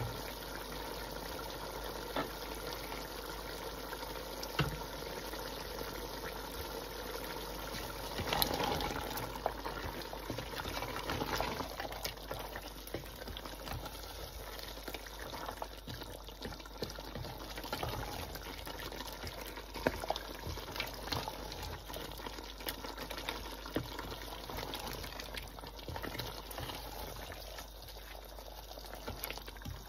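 Beef curry simmering and bubbling in a large stainless-steel pot while being stirred with a wooden spoon, with many small clicks and pops throughout. It grows louder for a few seconds about eight seconds in.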